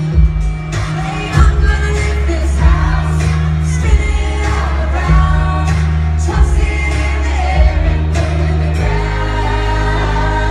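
A band playing live, with singing over a heavy, sustained bass line.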